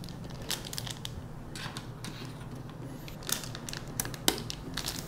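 G.Skill Trident Z5 RGB DDR5 memory sticks being pressed into a motherboard's DIMM slots: scattered small plastic clicks and crackles, with one sharper click about four seconds in as a module snaps into place.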